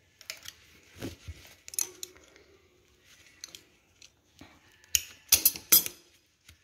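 Small scissors snipping thread ends close to a sewing machine: a few scattered soft snips, then a louder cluster of three or four sharp snips near the end.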